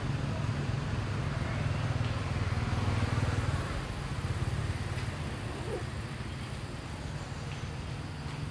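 Low, steady rumble of a motor vehicle engine. It swells a little a couple of seconds in and eases off after about four seconds.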